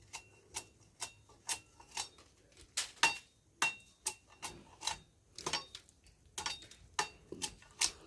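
Panga blade striking a sugarcane stalk again and again to chop off the hard rind, about two sharp chops a second, some with a short metallic ring.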